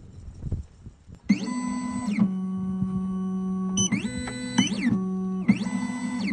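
Computerised key-cutting machine's stepper motors running, in several moves starting about a second in: steady pitched tones that glide up as each move starts and down as it stops.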